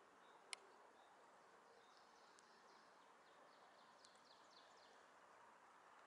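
Near silence: faint outdoor background hiss, with one sharp click about half a second in. Faint, high, short chirps, typical of small birds calling, come through in the middle.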